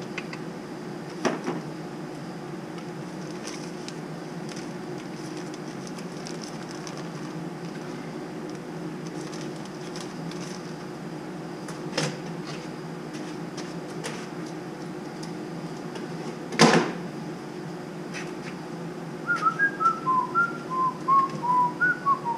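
Steady low machine hum with a few sharp clicks of metal parts being handled, the loudest about three-quarters of the way through. Near the end a person whistles a short run of notes.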